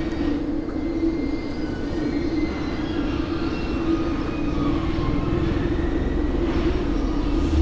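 A steady low drone with a rumble beneath it, and faint thin tones wavering above it.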